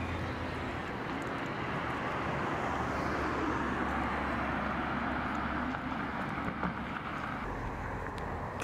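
Street traffic noise: a steady rumble of passing vehicles, with one vehicle's noise swelling and then fading away.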